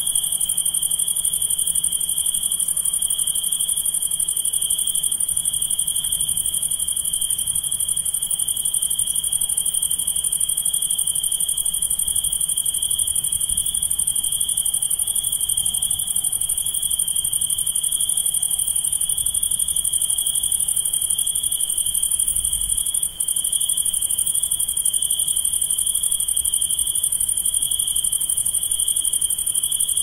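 Dense chorus of crickets trilling at night: a continuous high-pitched shrilling with no pauses, broken only by one momentary dropout about two-thirds of the way through.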